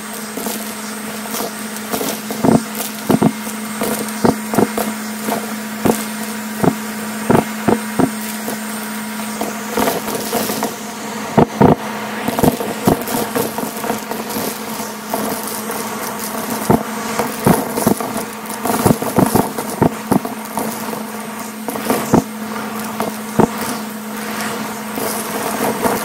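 Vacuum cleaner running with a steady motor hum while picking up plastic beads and sequins from a shag rug. Frequent sharp clicks and crackles come in irregular clusters as the debris rattles into the machine.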